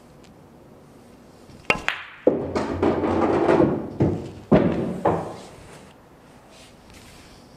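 Pool shot: two sharp clicks a little under two seconds in as the cue tip strikes the cue ball and the cue ball hits the object ball. Then a heavier knock as the ball drops into the pocket, followed by a rumble of the ball rolling inside the table and a few more knocks, fading out about six seconds in.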